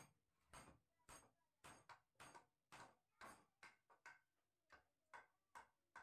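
Hammers striking a wooden window frame, a steady run of separate blows about two a second, as its joints are knocked together.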